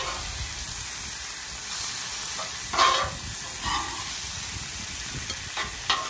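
Green beans sizzling in oil on a Blackstone flat-top griddle, a steady hiss, with a few sharp clacks and scrapes of metal tongs on the steel cooktop, the loudest about three seconds in.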